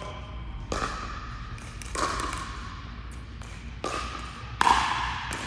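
Pickleball paddles striking a plastic ball in a rally: about five sharp pops at uneven intervals, the loudest about four and a half seconds in, each ringing on in the echo of an indoor hall.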